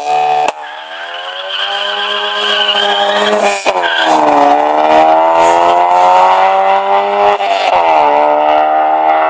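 Car engine accelerating hard at full throttle, its pitch climbing through each gear, with two gear changes, about three and a half and seven and a half seconds in.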